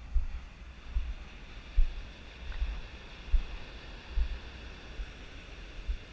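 Steam fumarole hissing steadily, with wind buffeting the microphone in repeated low gusts that are the loudest sound.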